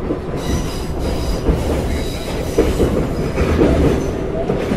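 Metro train running, heard from inside the carriage: a steady rumble of the wheels on the track, with high squealing tones from the wheels at times.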